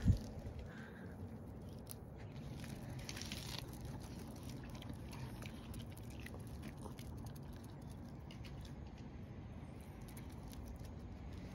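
Yorkshire terriers nibbling and chewing small flower blossoms from a hand, heard as faint scattered mouth clicks over a low steady rumble. A single loud knock comes right at the start.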